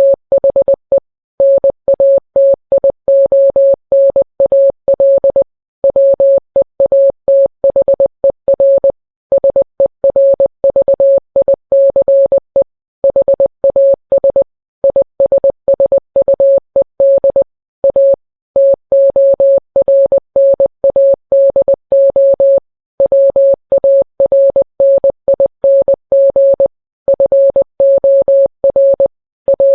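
Morse code: a single steady beep of middling pitch keyed on and off in short and long marks, with pauses of about a second between groups. It spells out what the uploader gives as a tornado warning message.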